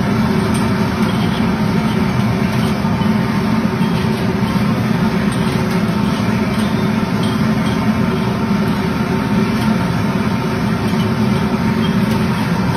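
Steady, loud background rumble without a break, mostly low in pitch.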